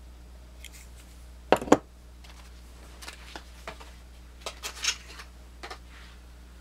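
Swiss Army knives being handled: two sharp metallic clicks about a second and a half in, then lighter scattered clicks and taps, over a faint steady hum.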